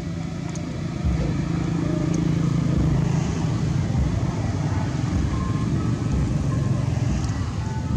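Low engine rumble of road traffic, growing louder about a second in and then holding steady.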